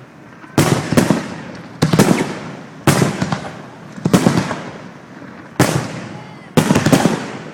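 Fireworks display: aerial shells bursting overhead in a series of loud bangs, roughly one a second, each trailing off in a fading rumble, with two bangs close together near the end.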